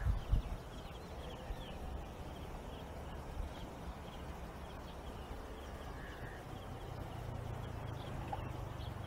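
Open-air rural ambience: wind rumbling steadily on the phone's microphone, with faint high bird chirps repeating in the background. A couple of handling bumps sound at the very start.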